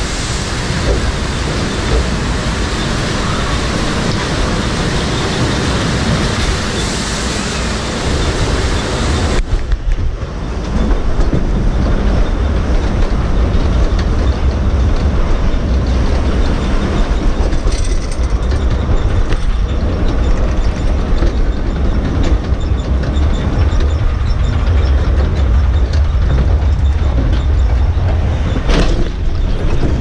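Reverchon log flume boat floating along the water channel with rushing, splashing water. About nine seconds in the water noise cuts off and a low mechanical rumble with scattered clatter takes over as the boat rides up the lift hill.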